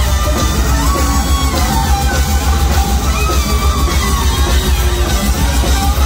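Rock band playing live with acoustic guitar, electric bass and horns, heard from within the crowd. The low end is heavy and pulsing, with melodic lines over the top.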